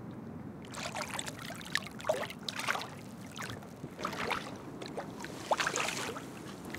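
Irregular splashing of water, a hooked zander struggling at the surface as it is reeled in on a bent rod. It comes in several short bouts starting about a second in.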